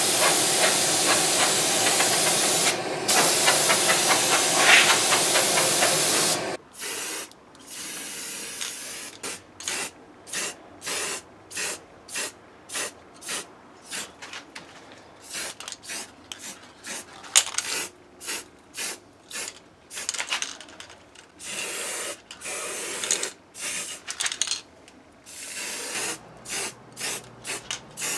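Compressed-air paint spray gun spraying in a steady hiss for about six seconds, with one brief break. Then an aerosol spray-paint can sprayed in many short bursts, roughly one a second, with a few longer ones.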